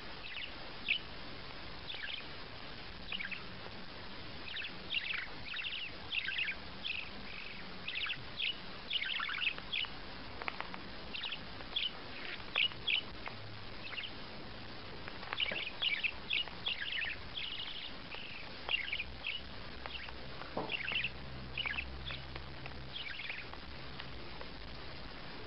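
A small bird chirping over and over: short, high chirps that sweep downward, coming in quick clusters, over a steady background hiss.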